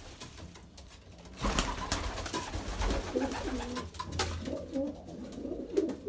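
Racing pigeon cocks cooing in the loft: several low, wavering coos in the second half. A few knocks and scuffles about one and a half seconds in.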